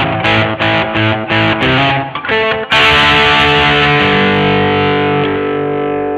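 1982 Vantage VE-550 electric guitar played with heavy distortion: short, evenly repeated chord strokes about three a second, then a full chord struck and left to ring, starting to fade near the end.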